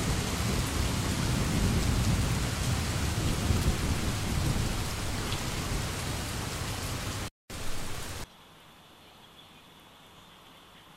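Heavy rain with low thunder rumbling through it, a thunderstorm recording. It cuts off abruptly about seven seconds in, comes back for under a second, then gives way to a faint steady hiss.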